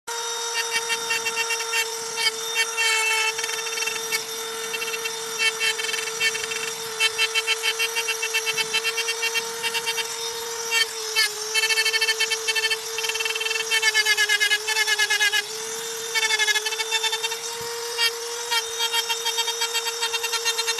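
Hand-held electric rotary engraving tool running at a steady high whine, its fine bit scratching and chattering against a hard dark slab in repeated stretches of fast ticking as lines are cut. The whine dips slightly in pitch under heavier cutting partway through.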